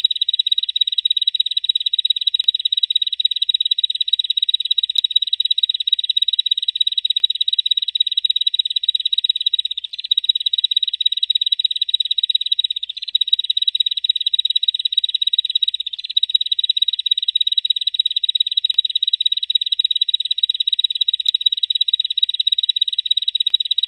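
Bar-winged prinia (ciblek) giving its continuous 'ngebren' call: a rapid, high buzzing trill that runs on unbroken without a pause.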